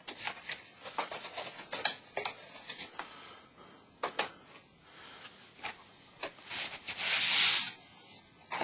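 Packaging being handled during unboxing: a run of light taps, clicks and rustles, with one louder rustling scrape lasting about a second near the end.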